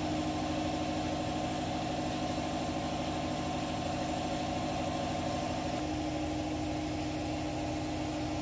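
Air compressor motor running steadily, building pressure in the air tank that will blow the museum's sugar-mill and steam-locomotive whistles.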